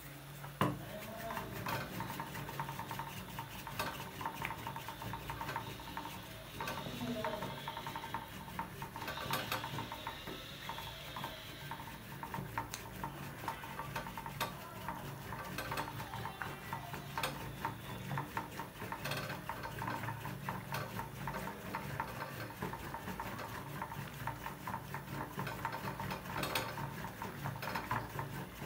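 A wooden stick stirring in a metal pot of thick nettle (sisnu) mixture, then twirled fast between the palms, giving a steady run of quick clicks and knocks against the pot. A sharp knock about half a second in is the loudest sound.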